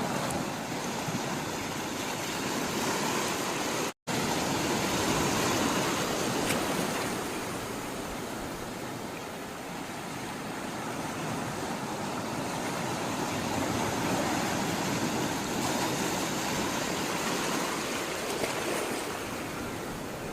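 Sea water rushing and washing, a dense, steady noise of moving water that swells and eases slowly. It cuts out completely for an instant about four seconds in.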